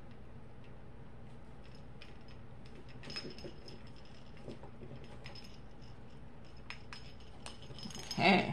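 Faint, scattered small metallic clicks and taps from a metal split keyring and tweezers as a diamond-painting keychain charm is worked onto its strap.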